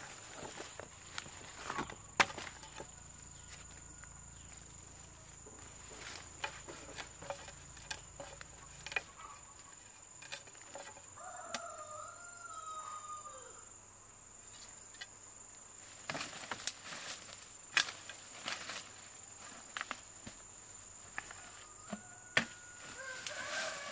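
Farmyard chickens, with a rooster crowing twice, about twelve seconds in and again near the end. Scattered clicks and knocks sound between the calls over a steady high whine.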